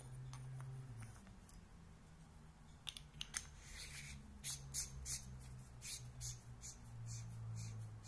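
Tail cap of a Sofirn C8F aluminium flashlight being screwed onto the body: the threads rasp in short scrapes, about three a second. A few sharp clicks come just before, as the 18650 battery goes into the tube.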